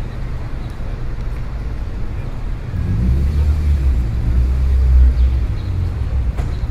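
Low engine rumble of a double-decker bus going by, swelling about three seconds in and easing off near the end.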